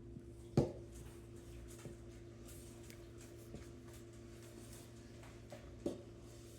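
Biscuit dough of flour, egg, pumpkin and peanut butter being stirred in a bowl: soft scraping, with a sharp knock against the bowl about half a second in and another near the end, over a faint steady hum.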